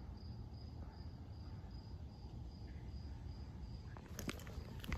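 A cricket chirping faintly and evenly, about two to three high chirps a second, over a low outdoor rumble. The chirps stop near the end, and a few sharp clicks follow.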